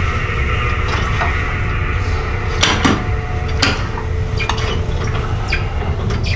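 Metal gym weights clanking and clinking, a string of separate sharp metallic knocks from the second second on.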